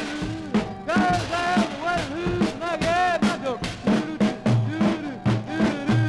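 Late-1960s rock 'n' roll single playing: a pounding drum kit, about two to three hits a second, under wailing pitched lines that swoop up and down.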